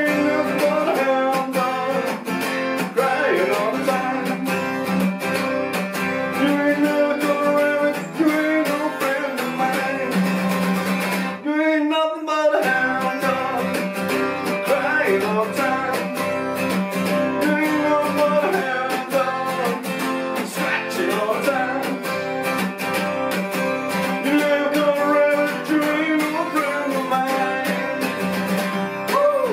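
Twelve-string acoustic guitar strummed in a driving rock-and-roll rhythm, with a short break about twelve seconds in where the strumming drops out briefly before picking up again.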